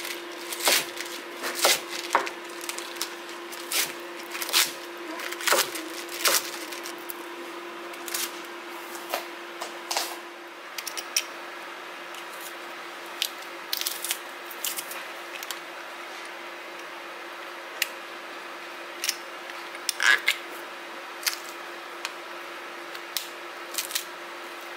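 Global steel kitchen knife chopping napa cabbage on a wooden cutting board, sharp chops about one or two a second. After about ten seconds the chopping stops and an IKEA metal garlic press takes over with scattered clicks and squeezes as cloves are pressed, over a steady low hum.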